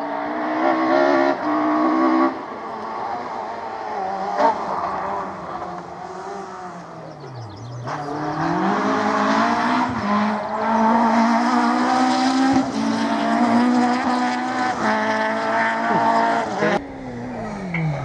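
Rally car engine at full throttle on a stage, revving hard through repeated gear changes and lifts. About 7.5 s in the pitch drops away in a falling sweep as the car passes. From about 8 s in it accelerates hard again and holds high revs, stepping up through the gears, with a single sharp crack about 4.5 s in.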